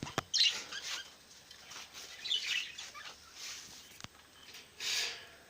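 Small parrots chirping and chattering in several short bursts, with a sharp click just after the start.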